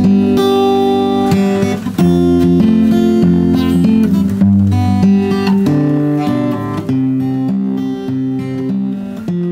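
Background music: acoustic guitar playing a strummed, plucked tune.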